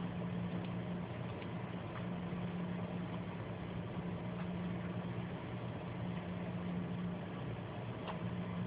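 Steady low mechanical hum with a few faint clicks scattered through.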